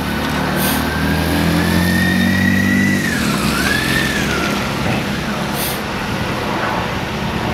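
Police motorcycle engine running steadily, then fading away about three seconds in, over continuous city traffic noise. A single high gliding tone rises, dips and rises again through the first four seconds.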